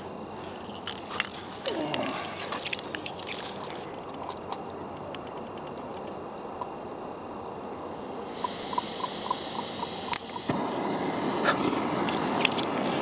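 Portable camp stove's gas burner, lit by match after its igniter failed, hissing; the hiss jumps louder about eight seconds in and deepens again a couple of seconds later as the flame takes hold and burns steadily, with a few small clicks and taps.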